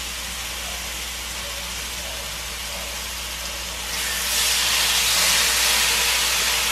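Pork chops sizzling as they fry in a dry non-stick pan with no oil; the sizzle grows louder and brighter about four seconds in.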